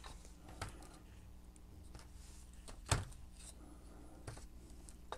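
A few light clicks and knocks of small metal hand-drill parts being handled and set down on a work table, the sharpest about three seconds in.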